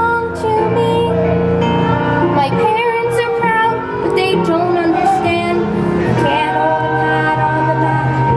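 A female singer performing a musical-theatre song over instrumental accompaniment.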